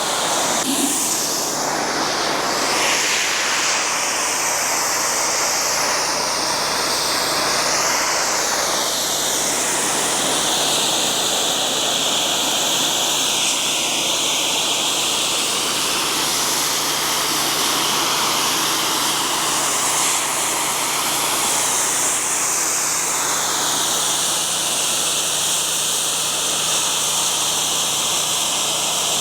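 Pressure washer spraying a high-pressure water jet against a retaining wall: a loud, steady hiss whose tone slowly shifts as the spray moves over the surface.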